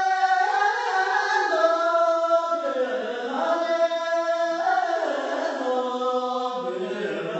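Tibetan folk singing in a slow, chant-like melody, with long held notes that glide from one pitch to the next.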